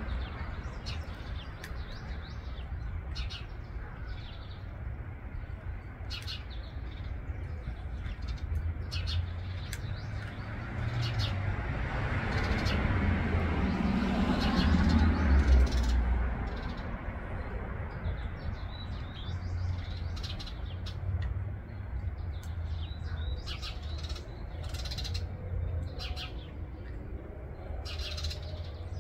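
Cat crunching dry kibble: irregular, sharp little crunches over a steady low outdoor rumble that swells and fades about halfway through.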